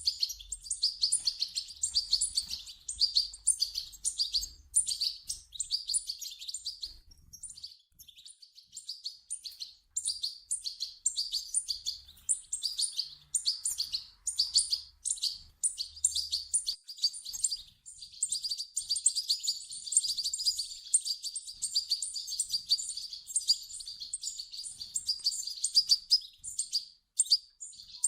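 European goldfinch chicks begging: rapid, high-pitched chirps in dense runs, with a short lull about eight seconds in.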